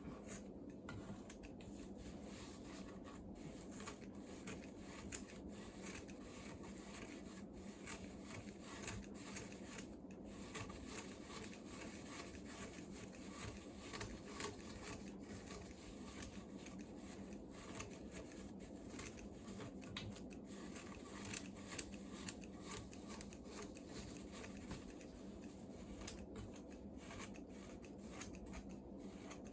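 Hemp twine rubbing and rustling as it is wound by hand around a cat scratching post, with scattered small clicks and a steady low hum underneath.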